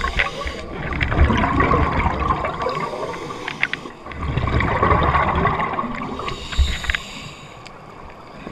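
Scuba diver exhaling through a regulator underwater: two long bursts of bubbles rushing out, each about three seconds, with a short lull between them.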